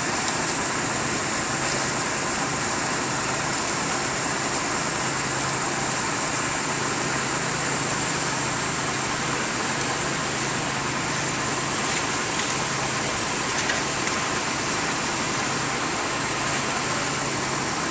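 An engine running steadily at idle, a constant low hum under an even noise, with no change throughout.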